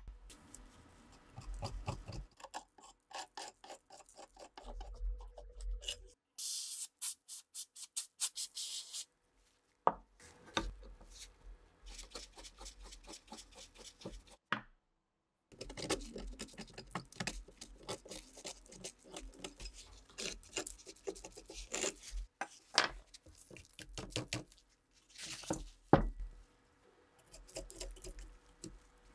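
A hand file rasping over a rusted metal fitting of an old rifle, alternating with a steel pick scraping caked grime from around a fitting set in the wooden stock. The strokes come in quick runs with short breaks between them, broken by a few sharp tool knocks.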